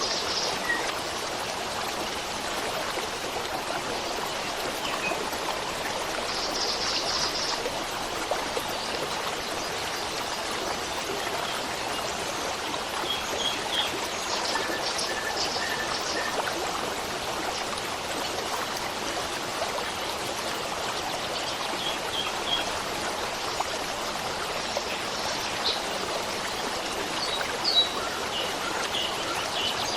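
Steady rush of a stream's running water, with faint short bird chirps scattered through it.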